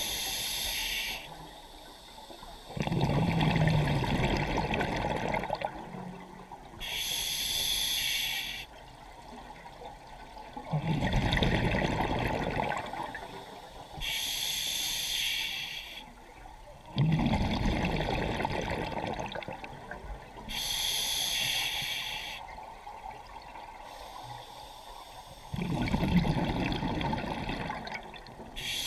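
Scuba diver breathing through a regulator, in a slow steady rhythm of about four breaths: a short high hiss on each inhale, then a longer low bubbling rumble of exhaled air.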